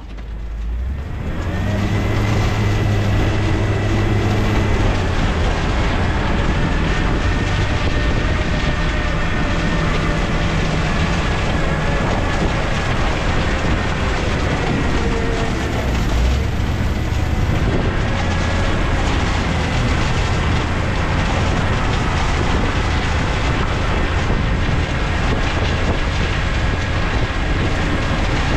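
Work truck driving along the road, its engine and road noise steady with a continuous rattling clatter and a faint steady whine, heard from a camera mounted on the back of the truck.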